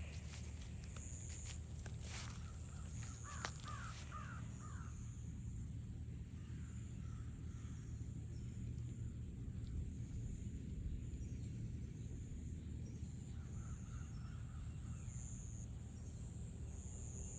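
Crows cawing a few times in the distance over steady outdoor background noise with a low rumble. A couple of sharp clicks come in the first few seconds.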